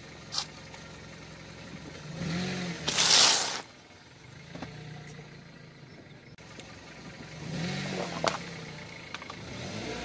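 Car engine running at low speed as a tyre rolls over a pile of ridged potato chips, crushing them with a loud crunch about three seconds in. The engine swells again near eight seconds, with a short crack.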